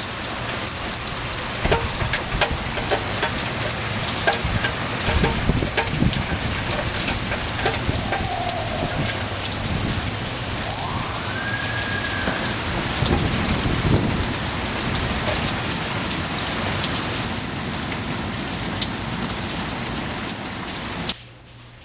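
Steady rain falling, with many individual drops striking close by. In the middle come two brief pitched tones, one falling and one rising. The rain cuts off suddenly near the end.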